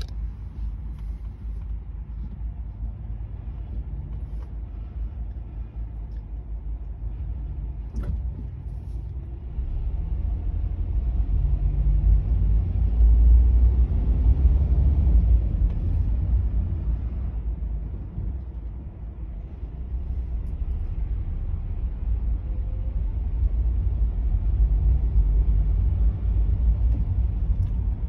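Low rumble of a car's engine and tyres heard from inside the cabin as it rolls slowly in congested traffic, swelling louder around the middle and again near the end. A single faint click about eight seconds in.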